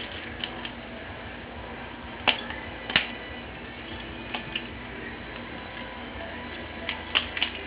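Butterfly knife handles clicking and clacking as it is flipped, in scattered sharp clicks. The loudest come about two and three seconds in, with a quick run of clacks near the end.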